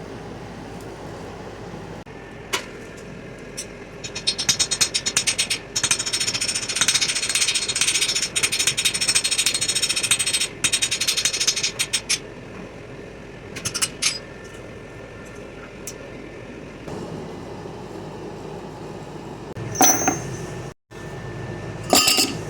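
Rapid, repeated hammer blows on metal during forging, running for about eight seconds from about four seconds in. A few scattered strikes follow, and two short louder clashes come near the end, over a steady background noise.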